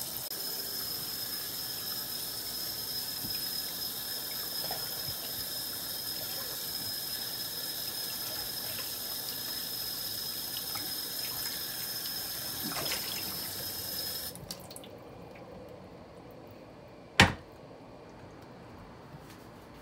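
Water running steadily from a tap with a faint high whistle, shut off abruptly about fourteen seconds in. A single sharp knock follows about three seconds later.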